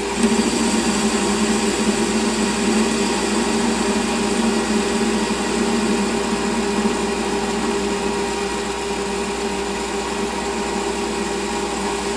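Metal lathe running steadily at about 750 rpm, a constant hum, while the tool takes a facing cut across the end of the spinning bar stock.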